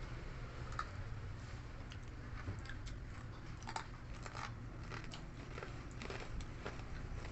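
Close-up chewing and crunching of a crispy fried chicken head: irregular crisp crunches and bites, over a low steady hum.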